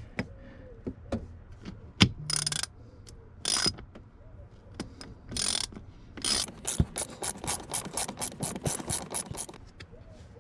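A ratchet driving a T15 Torx bit, clicking and rasping in short strokes as it backs out a T15 Torx screw holding the seat belt trim, then a quick run of about five clicks a second near the end.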